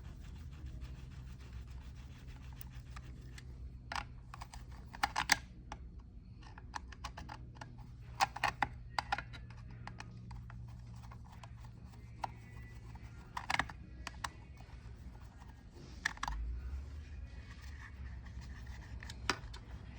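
Scattered clicks, taps and light scraping of a screwdriver and hands working screws out of a chainsaw's housing, over a steady low hum.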